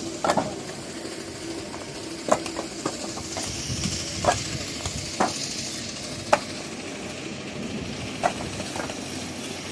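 Building-site noise: a steady hiss with sharp knocks and clacks every second or two, from construction work.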